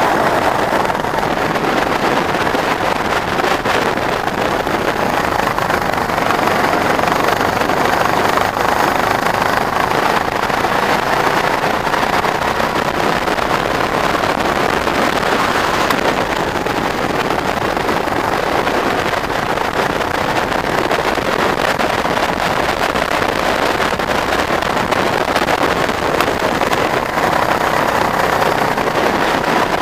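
Go-kart engine running at speed, heard from the kart itself, its pitch rising and falling through the corners over a steady rush of noise.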